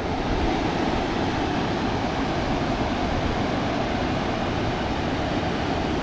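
Steady rushing roar of river water pouring over a low-head weir.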